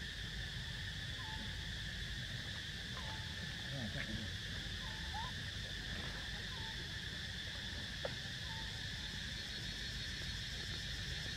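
Steady, even drone of insects, with faint short chirping calls every second or two and one brief click about eight seconds in.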